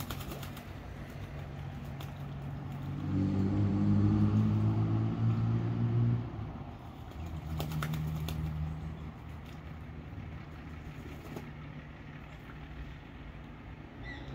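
Australian wood duck bathing in shallow water, splashing and flapping in short spells near the start and again about halfway through. Under it runs a low, steady, engine-like hum, loudest for about three seconds midway before it cuts off sharply.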